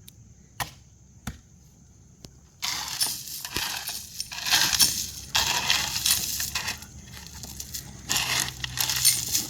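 Loose gravel crunching and scraping, as if being shovelled, raked or dumped, starting suddenly about two and a half seconds in after a few faint clicks and continuing in dense, irregular pulses.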